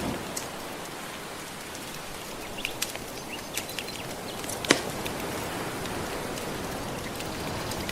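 Gentle ocean waves washing steadily, with a wood fire crackling over them: scattered small pops, a few close together, and one sharp, louder pop about halfway through.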